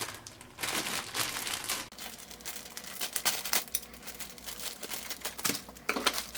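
Plastic packaging crinkling and rustling in irregular crackles as a mushroom squishy toy is unwrapped, with a little tearing.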